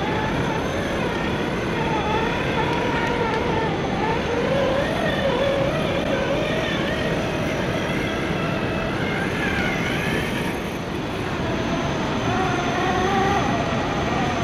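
Electric motor and geared drivetrain of an RC scale crawler truck whining, the pitch rising and falling with the throttle as it crawls over rock, over a steady noisy background.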